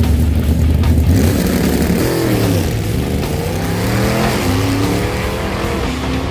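A car engine: a deep steady rumble, then revving, its pitch dipping and climbing several times from about two seconds in.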